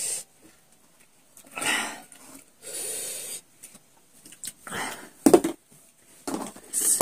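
Hissing breaths drawn in and sucking sounds from people eating chilli-salted lemon slices, reacting to the sourness. A few sharp clicks fall between them, the loudest about five seconds in, as a spoon and fingers work at the plate.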